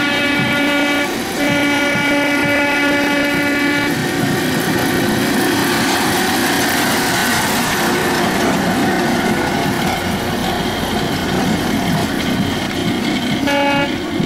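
A horn sounds in two long, steady blasts, then a rail-converted Trabant estate car runs close past on narrow-gauge track with its engine running and wheels rumbling on the rails. Another horn blast comes near the end.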